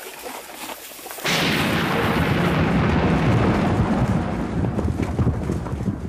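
A sudden thunderclap about a second in, followed by a long, rolling rumble of thunder. Under it, the hoofbeats of a herd of horses breaking into a gallop.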